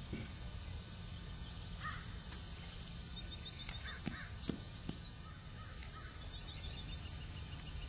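Birds calling outdoors: a few short calls and two runs of rapid, high chattering chirps, over a low steady background rumble.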